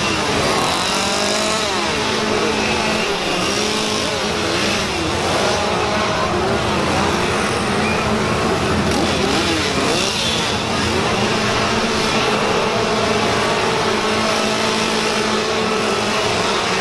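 Gas chainsaw engines revving up and down over and over, several at once, with a crowd's voices underneath.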